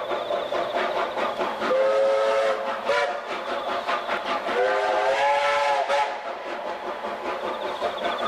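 NZR J class 4-8-2 steam locomotive J 1234 working along the line with rapid exhaust beats and sounding its steam whistle: a blast about two seconds in, a short toot just after, then a longer blast whose pitch bends up and back down.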